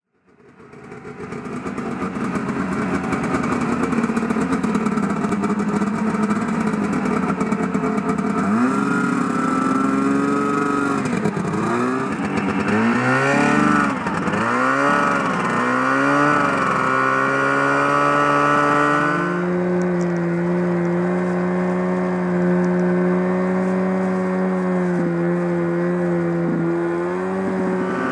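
1974 John Deere 300 snowmobile's two-stroke engine running, rough and uneven at first, then revved up and down several times before settling to a steady speed with a couple of brief blips near the end.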